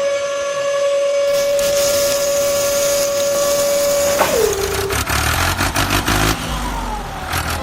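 A single steady whistle-like tone held for about four seconds, then sliding down in pitch and dying away, over a low engine-like rumble.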